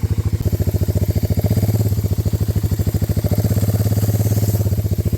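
A small engine running steadily with a rapid, even pulse and a low hum that swells briefly twice. It is the loudest sound, heard while the cordless Milwaukee M18 wet-dry shop vac sucks shredded latex glove pieces off the lawn.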